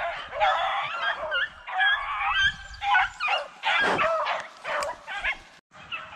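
A pack of beagles baying as they run a rabbit, several dogs' howls overlapping and bending up and down in pitch, fainter after a brief break near the end.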